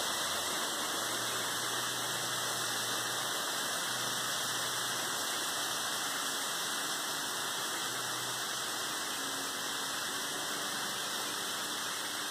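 35% hydrogen peroxide boiling and fizzing around a gold-and-quartz specimen as it reacts with the pyrite and other sulfides on the rock, heated by the reaction alone: a steady hiss.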